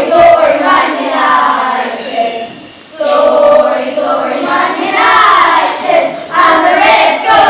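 A group of primary-school children singing together, with a brief break between lines about two and a half seconds in.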